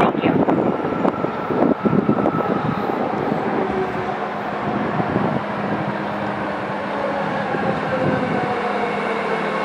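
BART Fleet of the Future train pulling into the station: a steady rumble of steel wheels on rail, with a motor whine whose several pitches slowly fall as the train slows.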